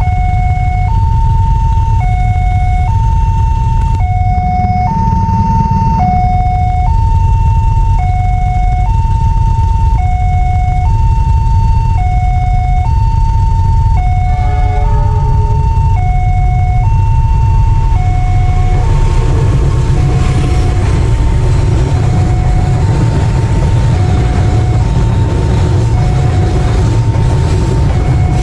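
Railway level-crossing warning siren sounding its two-tone alarm, a lower and a higher note alternating about once a second. From about two-thirds of the way in, the noise of a container freight train's wheels and wagons passing over the crossing rises beneath the siren.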